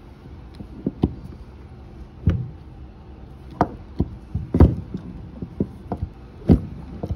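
Hand-pumped hydraulic crimper being worked to crimp a lug terminal onto a battery cable: irregular clunks and knocks from the tool as it is pumped and levered against a wooden table, about a dozen of them, the loudest a little past the middle.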